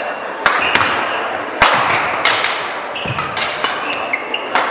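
Badminton rackets striking the shuttlecock in a rally, about eight sharp cracks with the loudest near the middle and near the end, with short high squeaks of court shoes between them and a steady echoing hall noise underneath.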